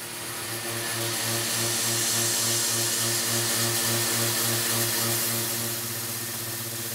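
Carbide end mill full-slotting 304 stainless steel on a CNC mill, with a steady hiss from a Fogbuster air-mist coolant nozzle. A low hum pulses about three times a second under the hiss and steadies near the end.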